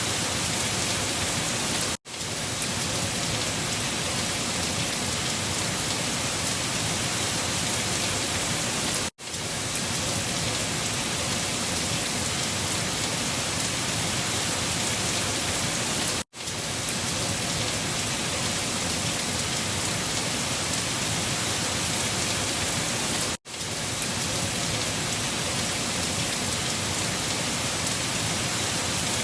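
Steady, even rain. About every seven seconds it cuts out for a split second and comes straight back.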